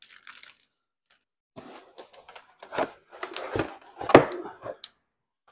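Unpacking noise: a cardboard box being tipped and handled on a wooden workbench as a bubble-wrapped reciprocating saw is pulled out, with rustling and scraping and a single thump a little after four seconds in.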